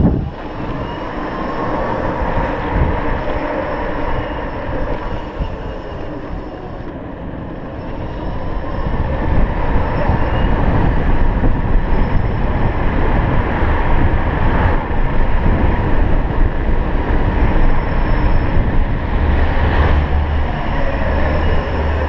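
Electric scooter riding at speed: wind rushing over the microphone and tyre rumble, with a faint whine from the electric motor that rises and falls with speed. It gets louder from about eight seconds in as the scooter picks up speed.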